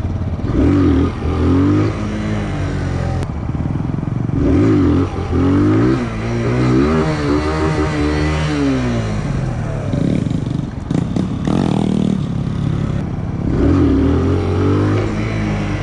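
Small 125 cc single-cylinder motorcycle engine revving up and down again and again while riding off-road, its pitch rising and falling in several sweeps. A brief clattering scrape comes about eleven seconds in.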